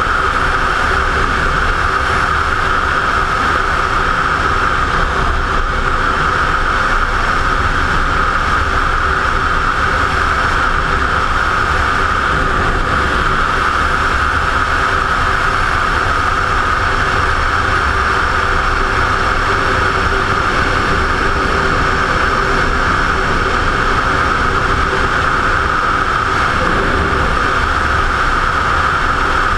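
Motorcycle cruising at a steady speed, its engine note under a constant rush of wind on the helmet-mounted camera, with no revving or gear changes.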